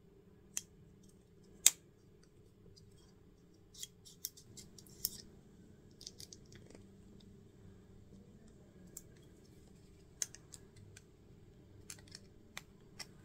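Small, sharp metal clicks at irregular intervals, in small clusters, from needle-nose pliers working the metal tabs of a small slide switch's housing.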